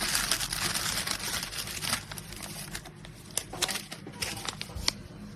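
Plastic packaging crinkling as it is handled for about two seconds, then thinning out into a few separate clicks and taps.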